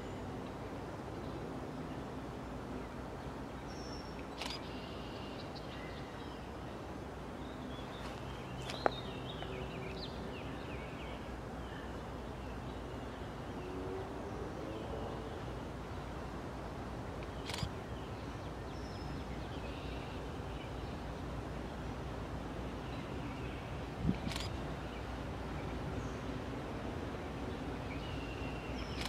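Outdoor ambience: small birds chirping now and then over a steady low rumble, with a few sharp clicks, the loudest about nine seconds in.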